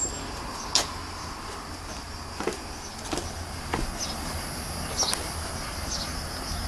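Steady high-pitched drone of summer insects, with a few scattered sharp knocks and a low rumble underneath.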